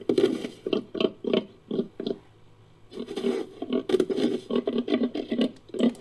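Made-up creature call mixed from jaguar and prehistoric-mammal sound effects: a run of short, rough calls, a few a second, with a pause of about a second in the middle.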